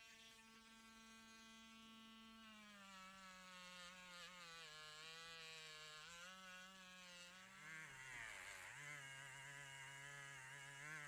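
Faint background music: one sustained note with many overtones that slides slowly lower, turning into a fuller, wavering chord about eight seconds in.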